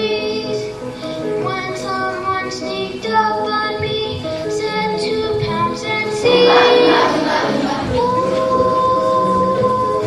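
Children singing a song with musical accompaniment, the melody moving note by note and ending on a long held note.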